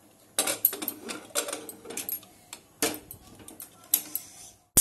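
Aluminium pressure cooker lid being fitted onto the pot and its handle swung shut and locked: a string of metal clicks, knocks and scrapes, about half a dozen of them, irregularly spaced.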